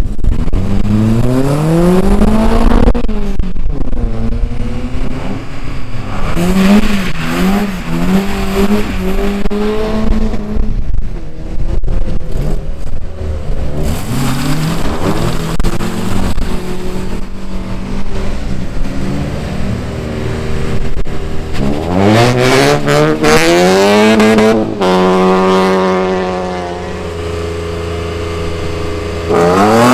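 Race engines, loud, accelerating hard on a track: the engine note climbs in pitch several times as the vehicles pull through the gears, holds one steady note for a few seconds near the end, then climbs again.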